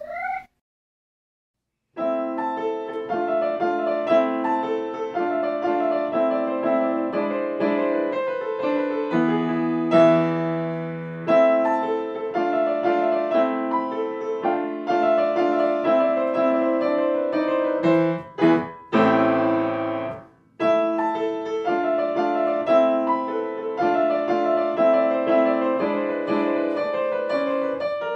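Piano music that starts about two seconds in and plays on, with a short break about two-thirds of the way through.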